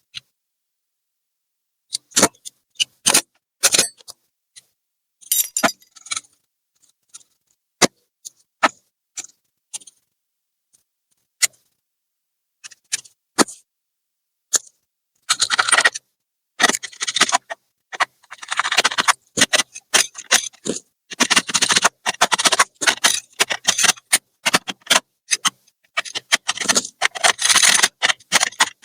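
Small hard laptop parts being worked by hand: scattered sharp clicks and taps at first, then dense, continuous scraping and rubbing from about halfway through.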